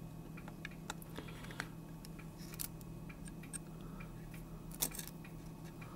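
Faint scattered clicks and taps of hands working on an opened 3.5-inch floppy disk drive, over a steady low electrical hum. The drive itself stays silent: its spindle motor is loose and the drive does not respond to the motor-on command.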